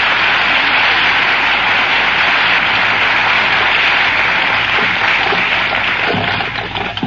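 Live radio studio audience applauding, dying away near the end.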